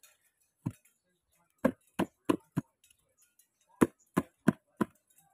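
Pink plastic scoop knocked against a black plastic tub to shake the last worm bedding out of it: one sharp knock, then two runs of four quick knocks, about three a second.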